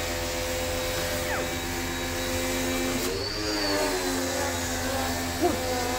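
High-pressure washer spraying, its motor running with a steady hum over a hiss. About halfway through the pitch sags for a moment and then comes back up.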